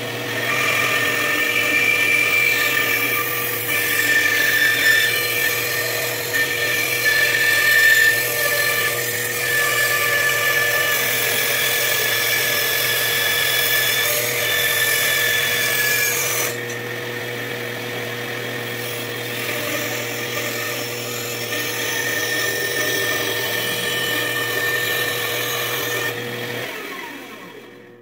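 Benchtop bandsaw running and cutting a mahogany spoon blank with a cast-resin handle, the blade sawing steadily through the wood. The cutting noise eases about two-thirds of the way through while the motor keeps running, and the saw dies away near the end.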